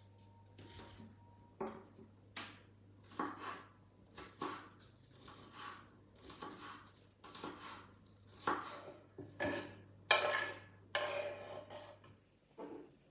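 Chef's knife chopping green onions on a wooden cutting board: a run of uneven chopping strokes, about one or two a second.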